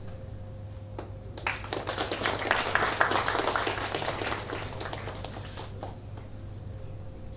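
Audience applauding: the clapping starts about a second and a half in, swells, then dies away by about six seconds. A steady electrical hum runs underneath.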